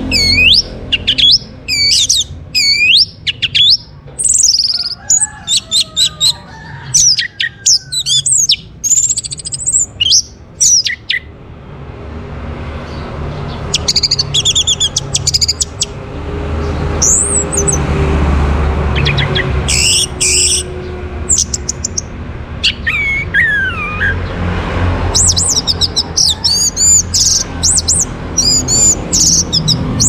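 Orange-headed thrush singing in rapid runs of varied whistled notes that sweep up and down, breaking off for about three seconds midway before resuming. A low rumble in the background swells in the middle.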